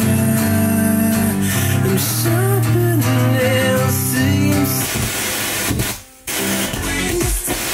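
Guitar music broadcast on FM and played through a vintage JVC R-S5L stereo receiver as its tuning knob is turned; a little after six seconds in the sound drops out briefly and comes back changed, as the dial moves off the station.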